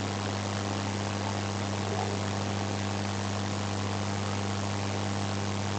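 Steady low electrical hum with a constant hiss behind it, unchanging throughout.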